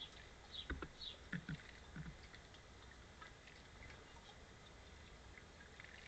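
House sparrows bathing in a shallow bird bath: a few quick splashes and flutters in the water in the first two seconds, with a few faint high bird chirps.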